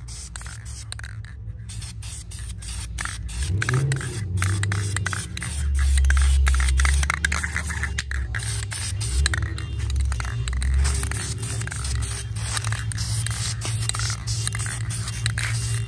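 Spray paint hissing in many short, closely spaced bursts as black paint is sprayed onto the inside of a wheel rim for a second coat. A low hum joins about three and a half seconds in, rising briefly in pitch as it starts, and carries on underneath.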